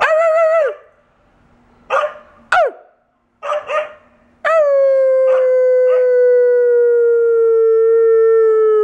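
A husky howling: a short wavering call, a few short yips, then one long howl from about halfway on that holds and slowly falls in pitch.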